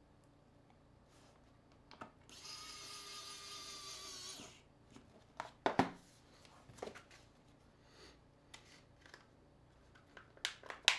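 Electric precision screwdriver running for about two seconds as it drives a screw into a smartphone, with a steady motor whir. It is followed by a knock as the tool is set down, then scattered clicks of the phone being handled and pressed together near the end.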